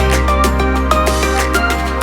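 Background music: an upbeat electronic track with a steady deep bass note, short melodic notes and a regular beat.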